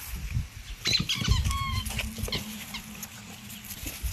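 Pit bull puppies about 14 weeks old giving a quick cluster of short, high-pitched squeaky yelps and whines at play, about a second in.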